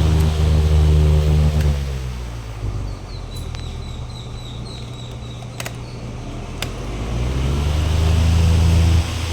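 Electric fan motor humming steadily, then switched off about two seconds in, its hum falling in pitch as the blades wind down. About seven seconds in it is switched back on and the hum rises back up to full speed.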